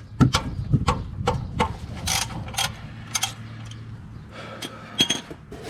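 Metal tools clinking and knocking in irregular strikes while working at the oil drain plug under the car to start draining the oil.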